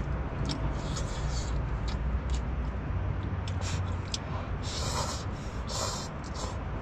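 Eating instant noodles in a tent: short slurps and small clicks over a low, steady rumble.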